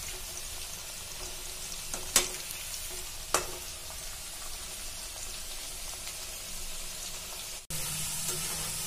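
Potato sticks sizzling steadily as they deep-fry in hot oil in a metal kadai, with two sharp clinks of the steel skimmer against the pan about two and three seconds in. Near the end the sizzle drops out for an instant and comes back slightly louder.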